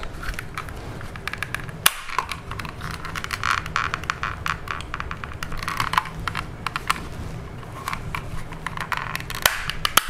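Plastic clicks and crackles from a BMW F10 interior door handle trim as its plastic retaining clips are prised apart and the pieces handled, with one sharp snap about two seconds in.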